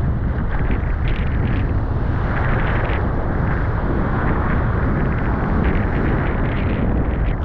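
Strong wind buffeting the microphone in a continuous deep rumble, with short bursts of hiss over it.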